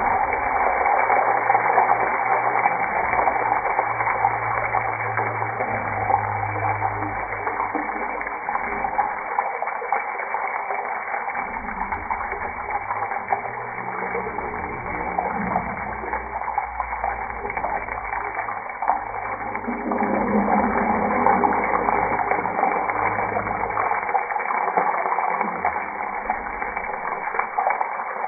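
Whole boiled eggs frying in shallow hot oil in a nonstick pan, a steady sizzling hiss.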